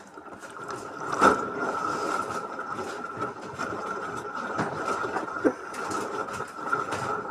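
LG washing machine running, with a steady whine and the noise of the drum turning, and a sharp knock about a second in, then lighter knocks later.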